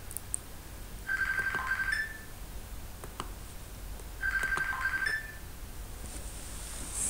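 Electronic ringtone sounding twice, each ring about a second long and the two about three seconds apart, with a few faint clicks in between.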